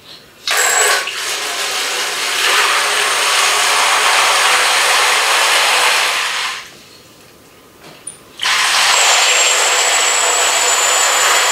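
Water rushing out of a newly connected toilet supply line with the shutoff valve open, flushing out debris left from the remodel. It runs for about six seconds, stops briefly, then runs again for about four seconds.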